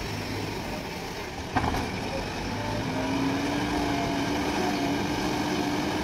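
JCB 3DX Plus backhoe loader's diesel engine running steadily, with a sharp knock about a second and a half in. A steady whine sets in about halfway through.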